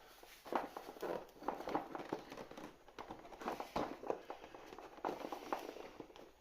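Cardboard advent calendar door and plastic packaging being opened and handled: irregular clicks and crinkling.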